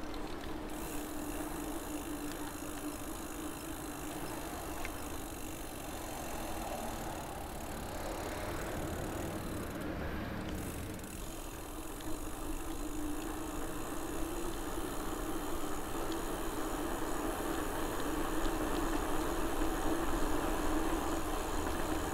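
BMC mountain bike riding along a paved street: steady tyre hum on the road surface with rolling road noise, growing a little louder in the second half.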